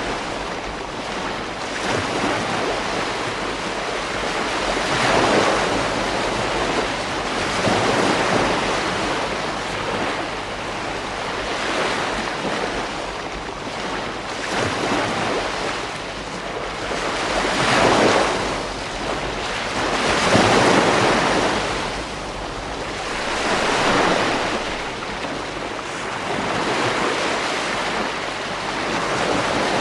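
Ocean waves breaking on a beach, a continuous wash of surf that swells and eases every few seconds, with wind buffeting the microphone.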